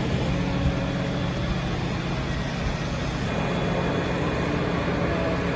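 Fire engines' diesel engines idling, a steady low hum over the street noise.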